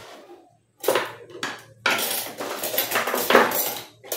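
A paper packet crinkling as it is handled and opened: a brief crinkle about a second in, then a longer stretch of crinkling from about two seconds until near the end.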